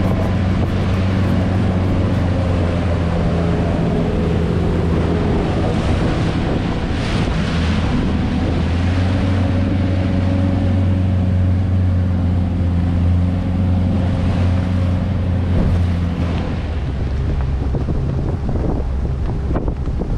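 Outboard motor running steadily at speed on a small Bass Tracker jon boat, with wind buffeting the microphone and the hull slapping and splashing through choppy water and wakes. Near the end the engine note shifts lower.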